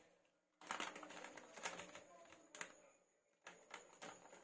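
Faint, scattered taps and scrapes of a steel measuring cup against a steel mesh sieve as flour is tipped in, amid near silence.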